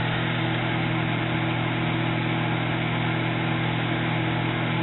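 Microwave oven running partway through its heating cycle: a steady, even hum.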